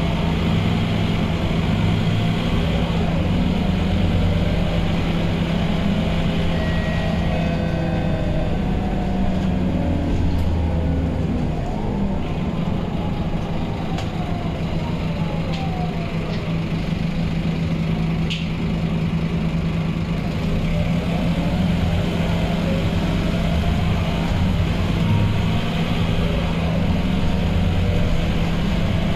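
Onboard a Scania K230UB city bus under way: its rear-mounted five-cylinder diesel runs with a steady low hum, and a whine rises and falls several times as the bus speeds up and slows. A few faint light rattles come through.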